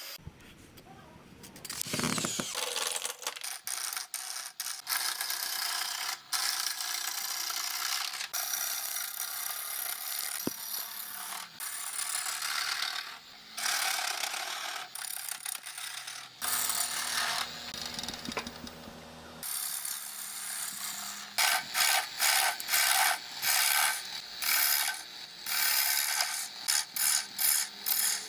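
Lathe tool cutting into spinning plum wood: a rasping, scraping noise that stops and starts, with rapid short strokes in the last several seconds.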